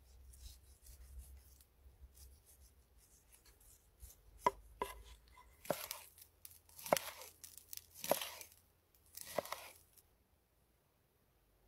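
Chef's knife slicing through a seared steak on a wooden cutting board. Faint scraping clicks at first, then about six crisp cutting strokes, each with a sharp knock, stopping about ten seconds in.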